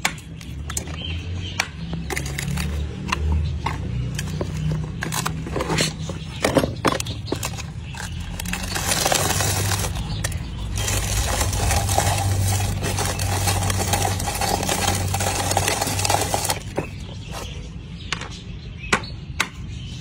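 Clicks and knocks of plastic containers and a steel spoon being handled as chopped hard-boiled egg is shaken out into a plastic tub. From about eight to sixteen seconds a steady mechanical noise with a faint whine runs underneath.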